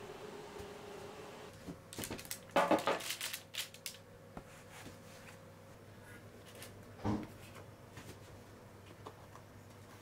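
Kitchen handling noises: a quick cluster of clatters and knocks about two to three seconds in, the loudest part, and a single knock about seven seconds in.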